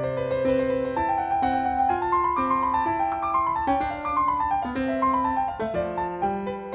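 Background piano music: a gentle melody of single notes stepping up and down over held lower notes.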